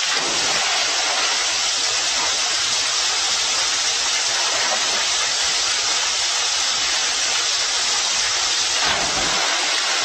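Steady rushing water: a pool's rock water slide pouring a stream of water down into the pool.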